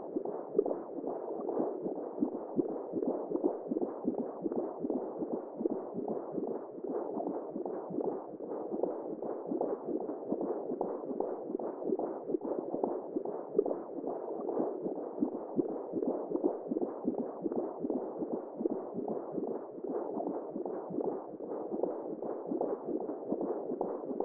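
Womb sound for lulling a baby: a muffled whooshing noise, dull with no high end, pulsing quickly and unevenly like blood flow and heartbeat heard from inside the womb.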